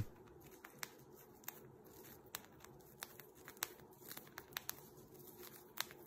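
Cockatiel cracking millet seeds off a millet spray with its beak: faint, irregular sharp clicks, about a dozen scattered across a few seconds.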